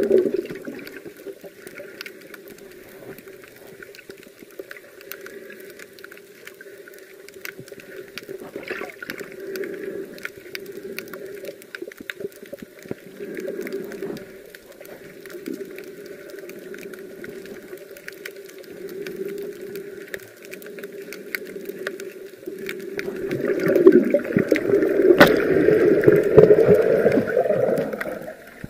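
Muffled underwater noise heard through an action camera's waterproof housing: water swishing and gurgling past the housing, with scattered small clicks. It swells louder for the last five seconds or so.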